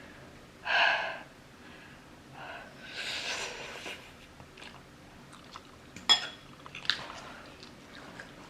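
Close-up eating sounds of spicy instant noodles: a slurp of noodles and chewing, with utensils clicking a few times against the bowl.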